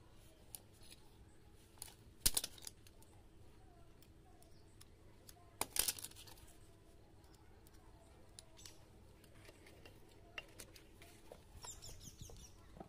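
Sharp metallic clinks of tools and gearbox parts being handled, two louder clusters about two seconds in and around six seconds in, with lighter ticks between.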